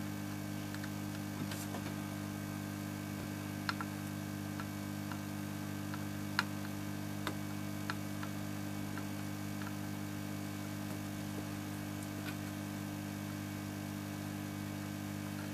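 Steady low electrical mains hum, with a handful of faint, light clicks as a soldering iron tip works the pins of a surface-mount chip on a circuit board; the clearest click comes about six seconds in.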